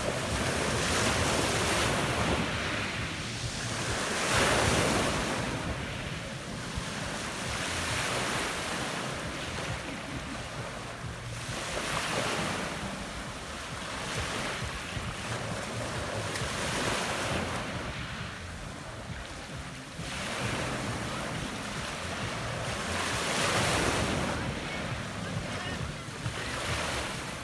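Adriatic Sea waves breaking and washing up a pebble beach. The wash swells and falls back in surges every four to five seconds.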